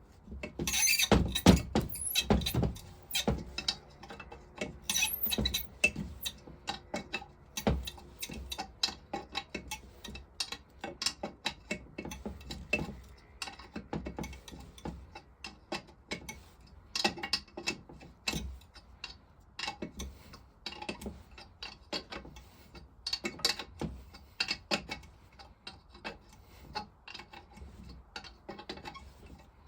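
Spanner working a seized, rusted nut on an old cast-iron engine vaporiser: irregular metal clicks, knocks and scrapes, with a cluster of louder ones about a second or two in.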